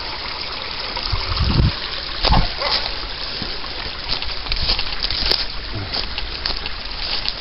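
A small creek trickling over rocks, with footsteps and rustling through ferns and a couple of low thumps about one and two seconds in.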